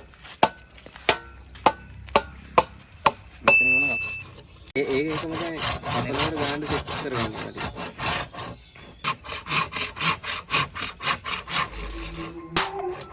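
A saw cutting through bamboo with quick, repeated strokes, after a few separate sharp knocks on the wood in the first few seconds.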